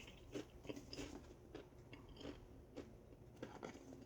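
Faint, irregular crunching of Pringles potato crisps being chewed.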